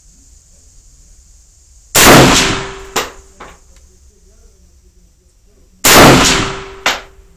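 Ruger Mini-30 semi-automatic rifle firing 7.62x39 rounds: two shots about four seconds apart. Each shot is followed by a faint ring and then a sharp metallic clank about a second later.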